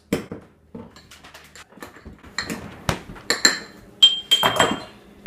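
Metal fork clinking and knocking against a small ceramic bowl while mashing banana in it: a run of irregular sharp clinks, one ringing briefly about four seconds in.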